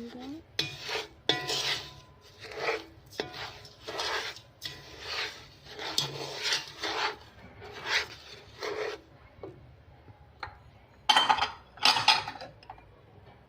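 Dry sugar and cinnamon being stirred together in a pot: a gritty scraping repeated about once or twice a second, with two louder scrapes near the end.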